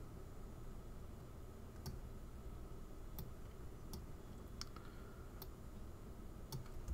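A few faint, spaced clicks of a computer mouse, placing anchor points with Illustrator's pen tool, over a low steady room hum.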